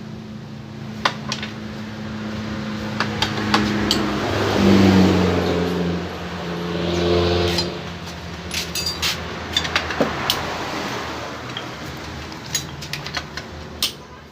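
Metal clinks and clicks of tools and parts being handled while a scooter's pulley cover is taken apart, over a motor hum that rises and falls in pitch twice and stops about eight seconds in.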